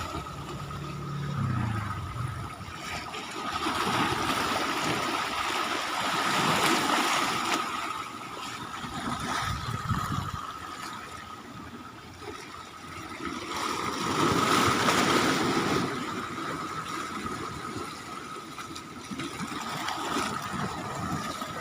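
Seawater at high tide washing and splashing along the shore, rising and easing in surges every few seconds, with a thin steady high tone underneath.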